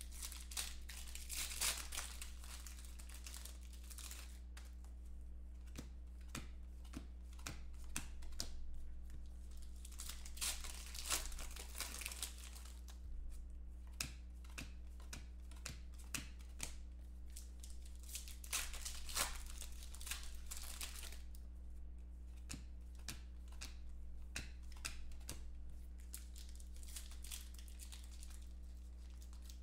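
Foil wrappers of 2014 Contenders football card packs being torn open and crinkled by hand, in four bursts about eight seconds apart, with light clicks of cards being handled between them. A steady low hum runs underneath.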